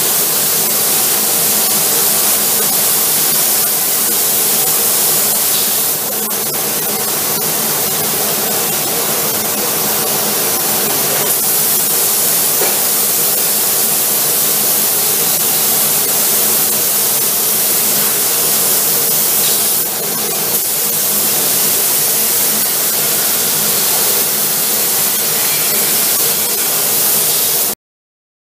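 A robot-held paint spray gun hissing steadily, over a faint even hum from the spray booth's extraction. The hiss dips briefly twice, then cuts off suddenly near the end.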